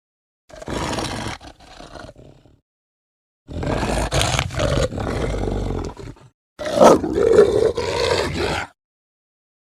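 Werewolf sound effects: three separate roars, each cutting off into dead silence. The first is short and tails off, the second is long, and the third is the loudest, with a sweep up and down in pitch near its start.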